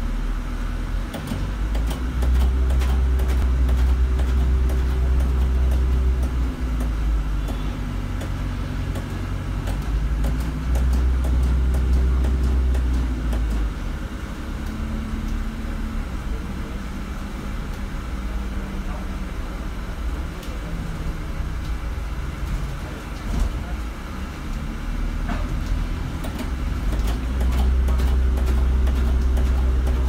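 Deep chugging from a Stagecoach London bus, heard from inside the saloon; it swells for several seconds at a time, three times (about two seconds in, around ten seconds in, and near the end), over the bus's steady running noise and light rattles.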